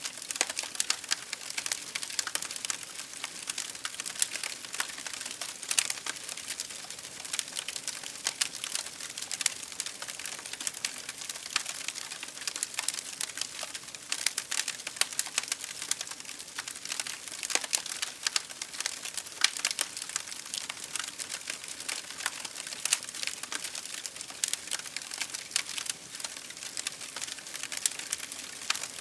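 Campfire crackling: burning firewood giving off a dense, irregular run of small pops and snaps, with now and then a louder one.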